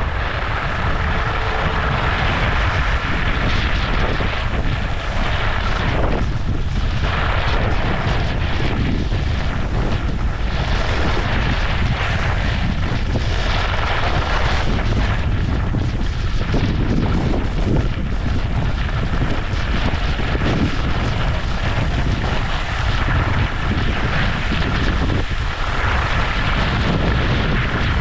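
Wind buffeting the microphone of a skier's camera, over the continuous scraping hiss of skis running on hard-packed groomed snow; steady throughout with small surges.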